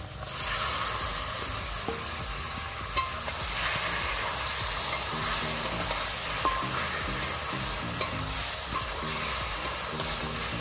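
Fish pieces hitting hot oil and masala in a wok: the sizzle jumps up suddenly as they go in and keeps frying while a spatula stirs them, with a few sharp knocks of the spatula against the pan.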